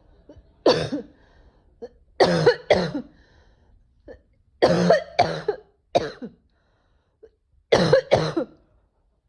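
A woman coughing in harsh bouts, mostly two coughs at a time, four bouts in all with short pauses between.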